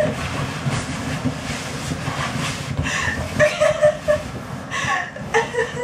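An air mattress being deflated under a person's weight as she rolls on it, with a steady low rush of escaping air. A few short pitched sounds come about three seconds in and again near the end.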